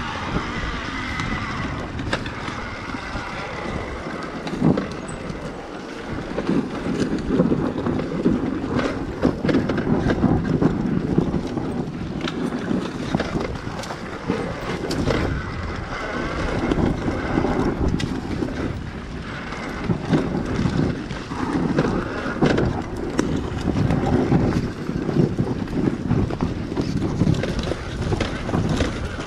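Dirt bike engine running at low trail speed, the throttle rising and falling, with frequent knocks and rattles from the bike bouncing over rough ground.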